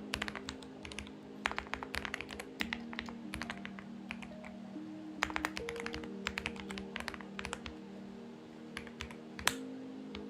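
Typing on a Xinmeng X98 mechanical keyboard: runs of quick key clicks in bursts with short pauses between, and one harder keystroke near the end. Soft background music with long held notes plays underneath.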